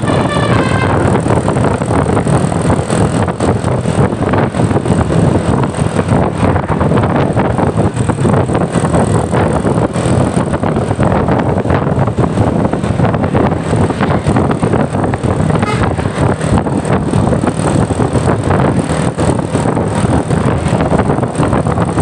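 A tour bus's engine running loud and steady close by, a dense unbroken rumble. A multi-note telolet horn melody ends about a second in.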